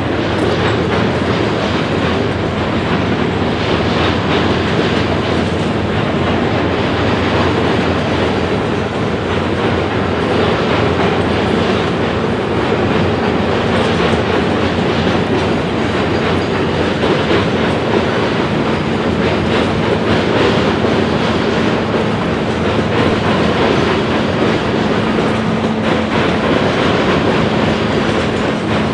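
Freight train cars, boxcars and tank cars, rolling past: a steady rumble of steel wheels on rail, with clicking as the wheels cross rail joints.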